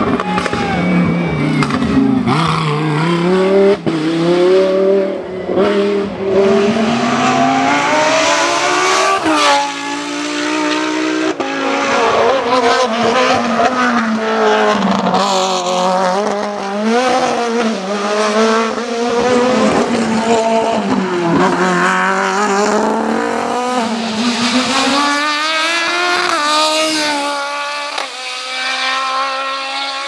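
Race car engines revving hard and shifting up through the gears on a hillclimb run, their pitch climbing and dropping sharply at each shift, with more than one car heard in turn.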